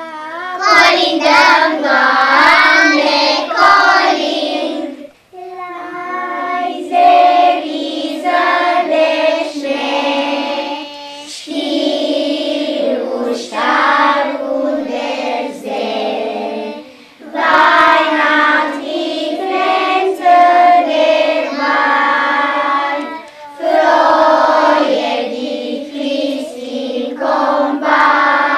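A group of children singing a Christmas carol together, in phrases of about five to six seconds with brief breaks for breath between them.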